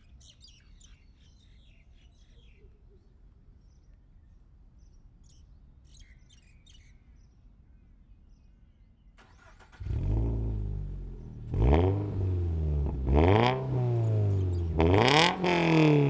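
Faint bird chirps, then about ten seconds in the flat-four boxer engine of a BRZ/GR86-platform coupe comes in loud through a COBB titanium cat-back exhaust, revving up and dropping back three times.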